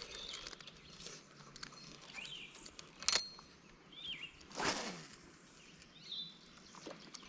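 Small birds chirping now and then over faint outdoor hiss. There is a sharp click about three seconds in and a short rustling noise a moment later.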